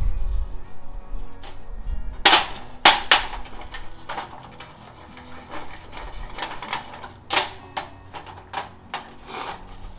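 Background music under a string of sharp clicks and knocks from metal parts being handled, lined up and clamped, the loudest about two and three seconds in and again past the middle.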